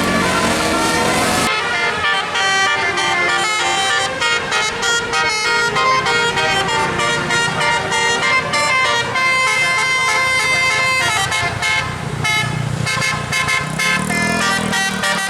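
Bus 'telolet' multi-tone horn playing a fast melody of short, quickly changing notes. A rushing noise cuts off suddenly about a second and a half in, and a low engine-like hum rises near the end.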